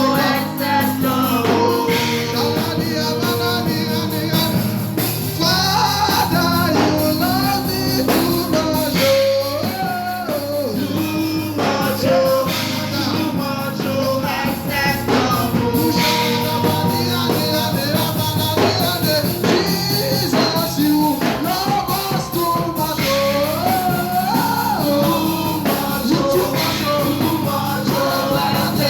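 Gospel song with a lead singer over a full band with drums and guitar, played at a steady level.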